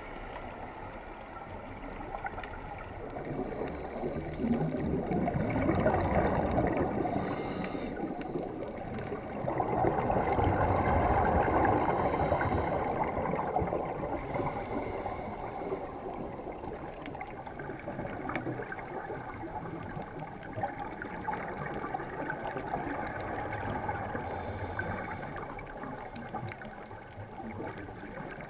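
Underwater rushing and gurgling of water and scuba bubbles, muffled through a GoPro's waterproof housing. It swells louder twice for a few seconds, about four seconds in and again about ten seconds in.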